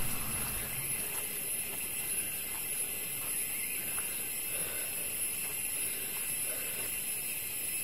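Tropical forest ambience: a steady high-pitched insect drone, with faint footsteps on a dirt trail.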